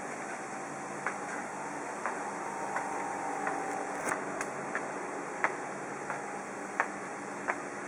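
Footsteps climbing outdoor steps: a sharp tap about every two-thirds of a second over a steady hiss.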